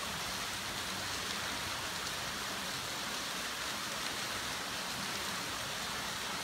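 Water pouring and splashing off a slowly turning wooden grist-mill water wheel fed from a sluice, a steady, even rush with no knocks or creaks standing out.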